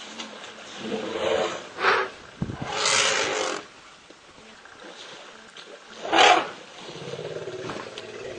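Elephants calling at a waterhole: about four short, loud roaring calls, the loudest and shortest about six seconds in, while a calf struggles in the water below the adults.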